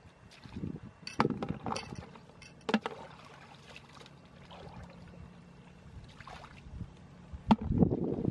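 Hands splashing and sloshing in a shallow muddy puddle while groping for fish. There are a few sharp splashes early on, and the sound gets louder and busier near the end.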